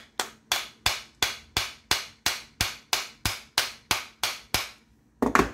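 Hammer tapping steadily, about three blows a second, driving a new bearing into place on a circular saw's armature; a louder double blow near the end.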